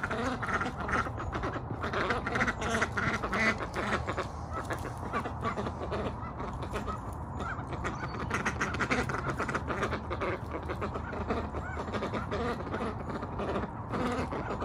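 Ducks quacking while billing through wood-chip mulch for slugs, with a steady patter of small clicks and rustles from their bills in the mulch.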